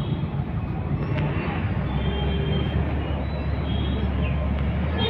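Dense road traffic of motorcycles, auto-rickshaws and cars moving over a level crossing: a steady engine rumble with a few short horn toots.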